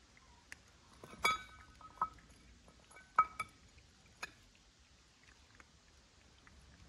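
Several light, sharp clinks of small hard objects, each with a brief ring: two loud ones about a second in and about three seconds in, with fainter ticks between.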